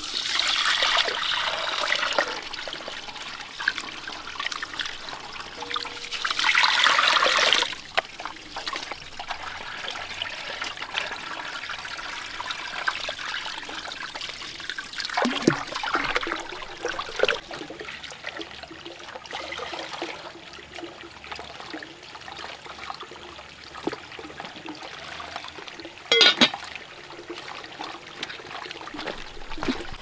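Water pouring and splashing, in a few louder gushes with quieter trickling between.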